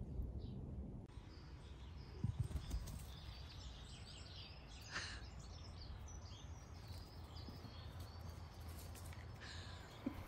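Garden ambience: small birds chirping and singing in short phrases, over a steady low rumble.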